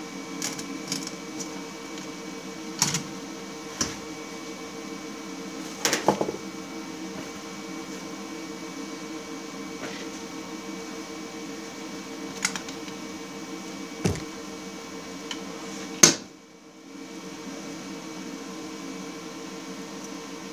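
Steady machine hum with a few sharp clicks and clunks as a welder's ground clamp, MIG gun and a steel chaincase half are handled on a sheet-metal welding bench. The loudest click comes about sixteen seconds in, and the hum dips briefly after it.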